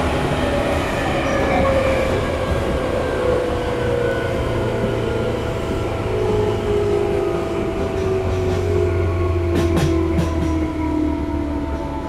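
Tobu 9000-series electric train with armature-chopper control, heard inside a motor car: the traction-motor and gear whine falls steadily in pitch as the train slows, over steady, unchanging chopper tones and low running rumble. A few sharp clicks come about ten seconds in.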